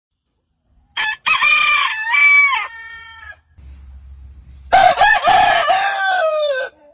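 Rooster crowing twice: a higher-pitched crow about a second in, then a lower crow about five seconds in that falls in pitch at its end.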